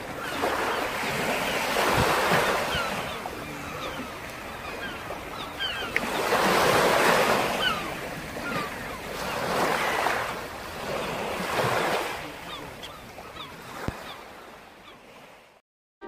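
Ocean waves washing onto a beach, the surf swelling and drawing back in several surges a few seconds apart, fading out near the end.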